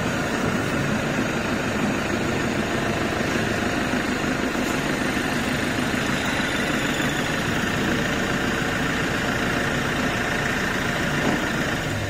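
Vertical CNC wheel-repair lathe running steadily, spinning an alloy wheel while its turning tool cuts across the wheel's face.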